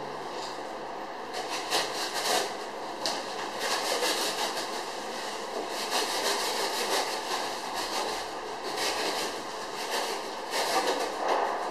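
Refrigerator packaging being handled: continuous rustling and crinkling with many small clicks and knocks.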